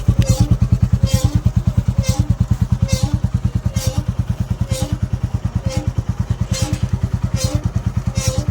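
Royal Enfield Classic 350 J-series single-cylinder engine idling with a steady pulse. Over it, a short brake scrape-squeal repeats about once a second. This brake noise is typical of the caliper touching the disc.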